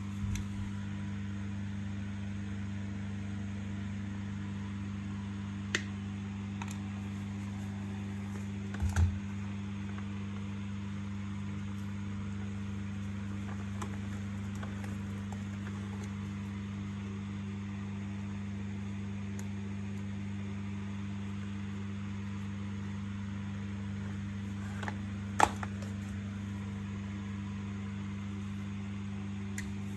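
A steady low hum, with a few sharp clicks and knocks from parts and tools being handled: three isolated ones, the loudest near the end.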